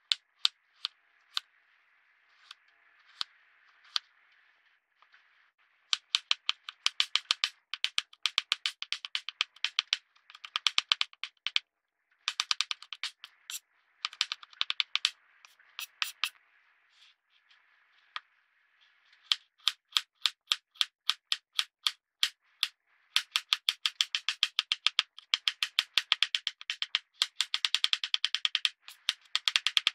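Runs of rapid, sharp crackling clicks, several a second, in bursts of one to two seconds with short pauses: a knife cutting through a dry, crumbly Lush bath product.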